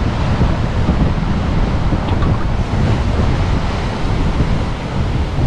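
Strong wind buffeting the microphone with a heavy, uneven low rumble, over the steady rush of surf on a stormy sea.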